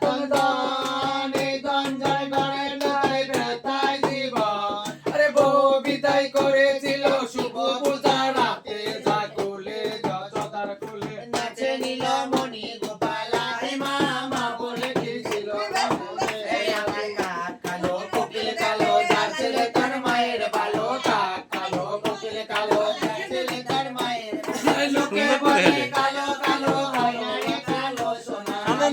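A song: singing with music over a steady rhythm of sharp claps.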